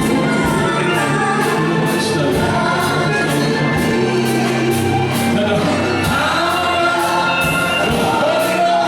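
Gospel music in church: voices singing over a band with a bass line and a steady beat.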